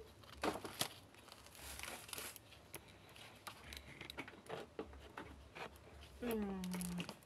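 Scattered light clicks and knocks of blue plastic rack panels being handled and pushed together during assembly, with faint rustling. A short voiced sound with a falling pitch comes about six seconds in.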